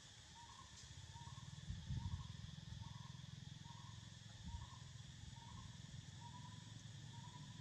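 Faint outdoor insect chorus, a steady high drone, with a short call repeating about every three-quarters of a second. Low rumbling, with a thump about two seconds in and another at four and a half.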